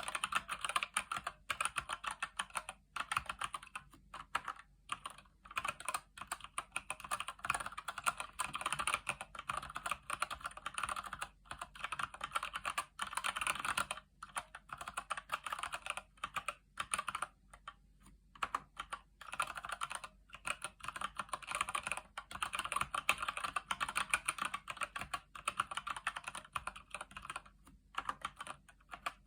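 Steady typing on a Keychron C1 mechanical keyboard with Gateron Brown tactile switches: a fast, continuous run of key strokes, broken by a few short pauses.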